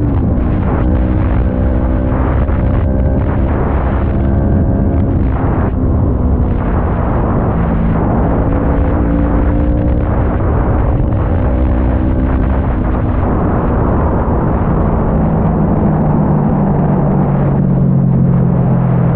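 Kawasaki ER-6n 649 cc parallel-twin engine pulling under way through an Arrow aftermarket exhaust. The note climbs slowly for most of the stretch, then drops to a lower, deeper note for the last few seconds.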